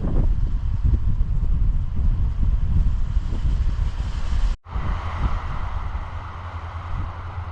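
Wind buffeting the microphone: a gusty low rumble. The sound drops out for an instant a little over halfway through.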